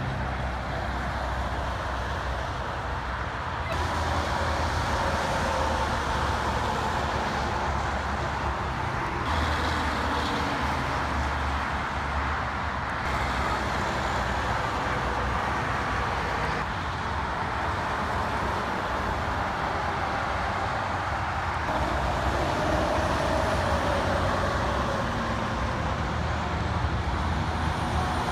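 Highway traffic: tractor-trailers, dump trucks and cars passing, a steady mix of diesel engines and tyre noise, changing abruptly every few seconds.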